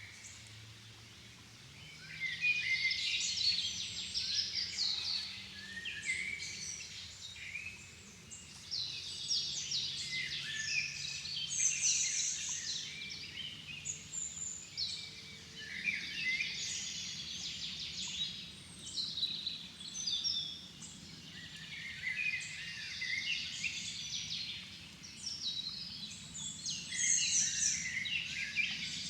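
Dusk chorus of several songbirds singing at once, phrases overlapping with brief lulls, after a quieter start of about two seconds. A faint low drone lies underneath.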